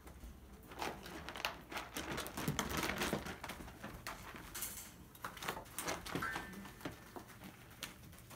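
Puppies scuffling and play-biting in a wire pen: paws scratching and pattering, with rattling clicks and small puppy noises. It is busiest about two to three seconds in.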